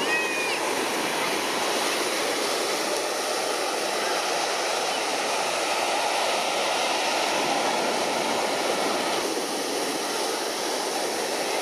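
Steady rushing ambience of a crowded beach: surf and the indistinct murmur of a crowd, with no single sound standing out.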